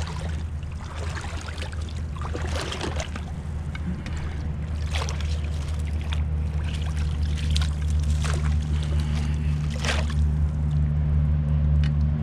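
Water splashing and sloshing in several short bursts over a steady low motor hum that grows gradually louder.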